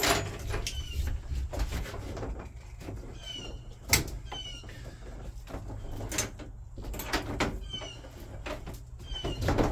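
Knocks and clunks of a spare motorcycle wheel and a dynamic rubber strap being handled against the cargo wall of a van as the wheel is strapped in place, about a dozen irregular knocks with short high chirps in between.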